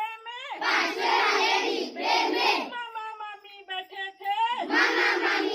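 A group of children singing a Hindi children's song loudly together, twice, with a single voice singing a line between the two group passages, call and response.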